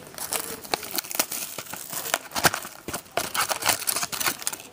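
Plastic shrink wrap crinkling and tearing as it is stripped off a sealed hockey card box, with irregular crackles and cardboard rustling as the box is handled and opened.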